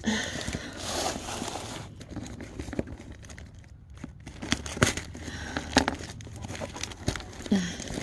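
Plastic trash bag crinkling and tearing as it is pulled and wrestled off a cardboard box, with scattered crackles and knocks.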